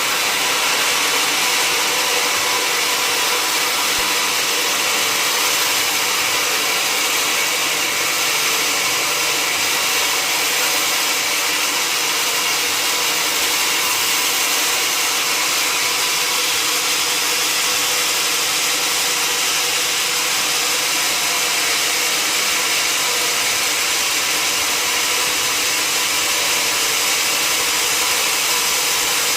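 Sawmill log saw running steadily: an even, unbroken hiss with faint steady tones underneath, no change in pitch or level.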